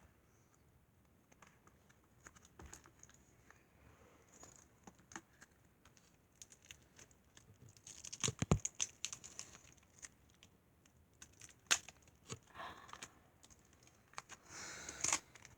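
Tin foil and sticky tape being pulled and peeled off a small package by hand: faint scattered crinkles, clicks and tearing, with louder crackles about eight seconds in and near the end.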